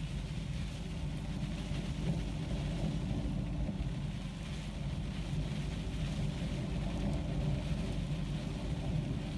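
Loose-fill insulation blowing machine running, with a steady rumble and rushing hiss of air and insulation through the large flexible hose.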